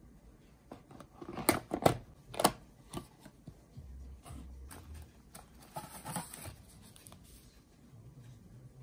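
Cardboard tea boxes being opened and handled: a run of sharp clicks and rustles from the flaps and lid, loudest in the first few seconds, then a paper tea-bag sachet crinkling briefly about six seconds in.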